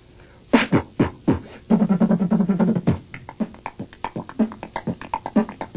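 Human beatbox: drum sounds made with the mouth. After a short pause come a few sharp hits and a held low hum, then a fast run of clicks and beats.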